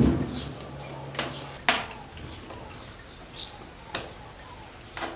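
A few sharp clicks and knocks from screws and a tool being worked at a washing machine's cabinet top cover. A low hum stops about a second and a half in, and faint bird chirps come in the background.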